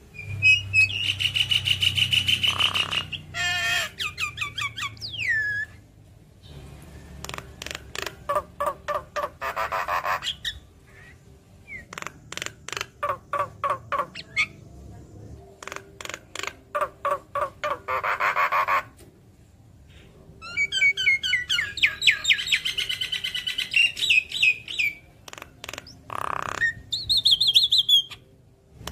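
Javan myna singing a varied chattering song: bouts of rapid sharp clicking notes, buzzy trills and gliding whistles, broken by short pauses.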